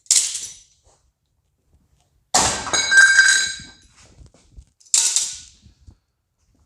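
Metal clamps being taken off a welded steel bed frame: three sharp metal clanks about two and a half seconds apart. The second and third ring on for about a second.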